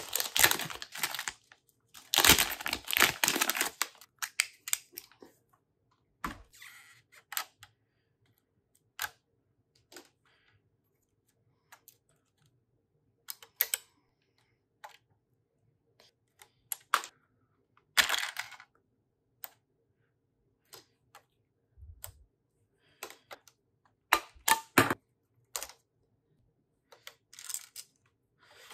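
Plastic packaging crinkling as it is unwrapped, then scattered sharp clicks and taps of Lego bricks being pulled off and pressed together, with a few short rustles in between.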